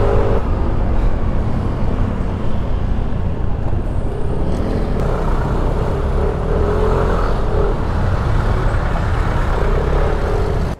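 Ride on a motor scooter in city traffic: a steady low rumble of the scooter's engine and road noise with wind over the microphone, with other vehicles around, and faint pitched engine tones rising and fading a few times.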